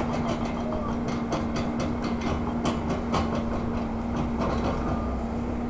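Excavator chipping concrete: the diesel engine runs with a steady hum while a string of irregular sharp knocks and clacks comes from the attachment striking and breaking the concrete.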